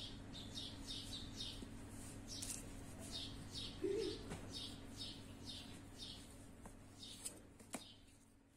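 A small bird chirping in a quick run of short high notes, each dropping in pitch, about three a second, fading out near the end. A short low sound comes about four seconds in, and two sharp clicks near the end.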